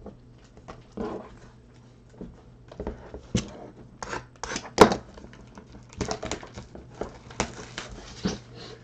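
Trading cards and plastic sleeves being handled on a tabletop: irregular rustling and crinkling with sharp clicks and taps, the loudest click about five seconds in.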